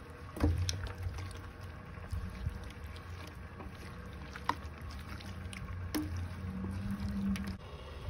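A spatula stirring a wet shrimp filling in a stainless steel pan, with a few sharp clicks and taps against the metal, over a steady low rumble.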